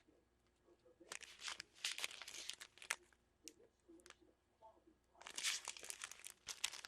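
Plastic packaging of a diamond painting kit crinkling and crackling as it is handled, in two faint spells of quick crinkles with a few isolated clicks between.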